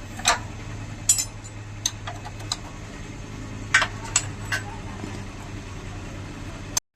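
Metal tools clinking and clicking on a motorcycle's rear axle and chain adjusters, about eight separate sharp clinks at irregular intervals, while the loose drive chain is being tightened. A steady low hum runs underneath and cuts off suddenly near the end.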